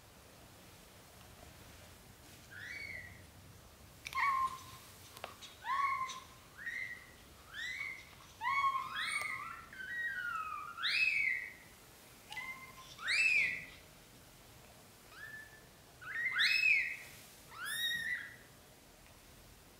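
Newborn British shorthair kittens mewing: a run of short, high-pitched cries, each rising then falling, several voices overlapping in places. The cries start a couple of seconds in and carry on until near the end.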